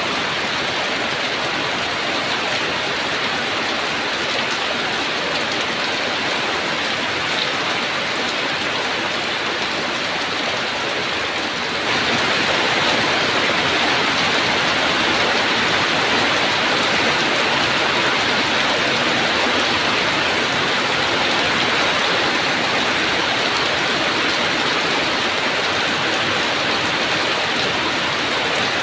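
Heavy rain falling steadily in a dense, even hiss, turning suddenly louder about twelve seconds in.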